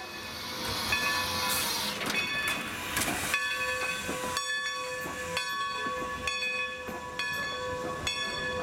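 Steam locomotive passing close by with a hiss of steam. Its coaches follow, their wheels clicking regularly over the rail joints under a steady metallic ringing.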